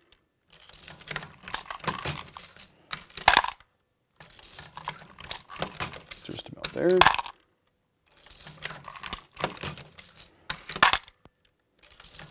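Lee Loadmaster progressive reloading press cycled by hand while loading 9mm, three strokes about four seconds apart. Each stroke is a run of metallic clinking and rattling of brass cases and press parts, ending in a sharp clack.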